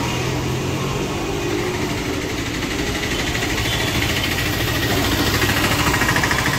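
Street traffic with a motor vehicle's engine idling, a steady mechanical hum under the general bustle.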